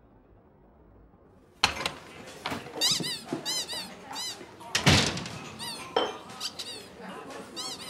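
Squeaky clown shoes squeaking with each step: short runs of high, rising-and-falling squeaks, set off by a sharp knock about a second and a half in and with a heavier thud about five seconds in.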